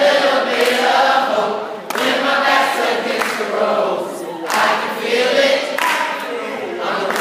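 A group of voices singing together in short phrases with brief breaks between them.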